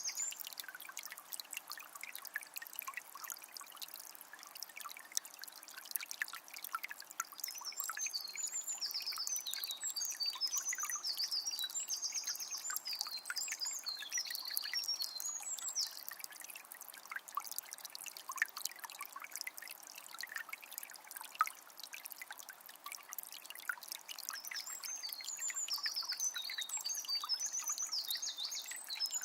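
Water of a small spring trickling and splashing steadily. A songbird sings runs of quick high notes from about seven to sixteen seconds in and again near the end.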